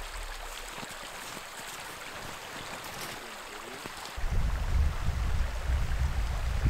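Small creek flowing between snowbanks, a steady hiss of running water. About four seconds in, a loud gusty low rumble of wind buffeting the microphone comes in over it.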